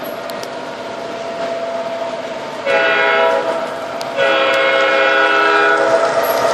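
Electronic horn of an MTH Premier O gauge SD80MAC locomotive's onboard sound system: one short blast, then a longer one of about two seconds, over the steady hum of the engine running on the track.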